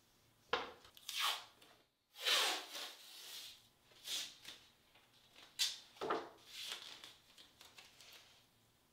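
Green painter's tape being pulled off its roll in a series of separate ripping strips, the longest about two seconds in, and laid down on a plastic sheet.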